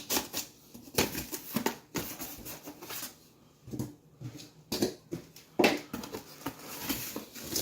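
A cardboard box being opened and the packaging inside handled: irregular taps, scrapes and rustles of cardboard and plastic.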